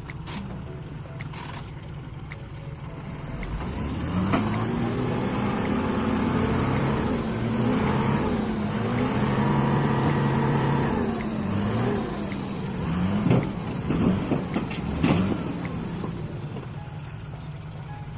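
Heavy truck engine running, its pitch rising and falling over several seconds as it revs up and settles back, then a few sharp knocks near the end.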